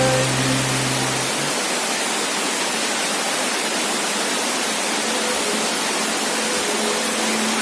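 Waterfall roar: a steady, even rushing noise, with faint held music tones above it.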